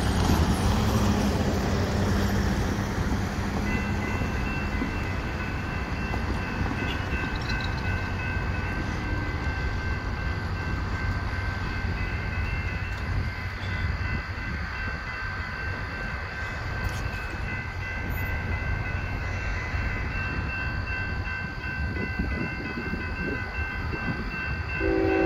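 Railroad grade-crossing warning bell starts ringing about four seconds in as the crossing activates and the gates lower, then keeps ringing steadily over a low rumble. Just before the end, the approaching freight locomotive's horn begins to sound.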